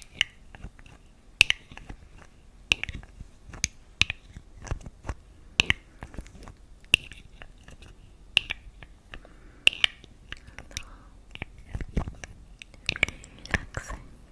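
Close-miked chewing of something crunchy: a sharp crisp crunch about every second and a half, with smaller clicks between.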